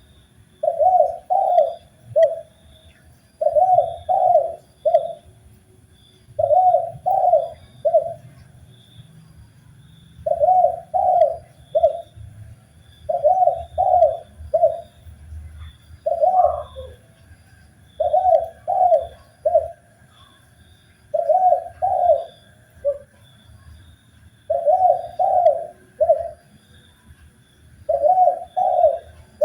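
Spotted dove (tekukur) cooing: a three-note coo phrase, two notes close together and a shorter third, repeated about every three seconds.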